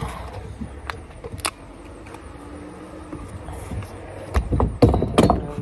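Stunt scooter wheels rolling on concrete with a low rumble, with a few sharp clacks and the rumble growing louder near the end.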